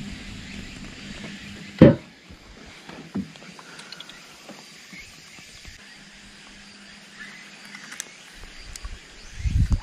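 A single sharp knock about two seconds in, the loudest sound here, and a softer knock about a second later, over a low outdoor background with a faint steady hum and a few light ticks.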